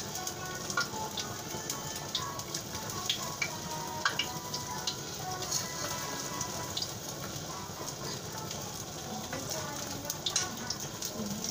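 Food sizzling as it fries, a steady crackling hiss with light scattered clicks of a utensil against the pan.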